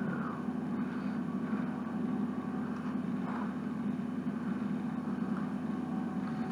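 Steady low hum of room background noise, with a few faint clicks of small plastic Lego pieces being handled and pressed together.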